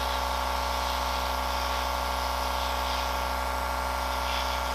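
Airbrush compressor motor running with a steady hum, and air hissing from the airbrush as clear coat is sprayed.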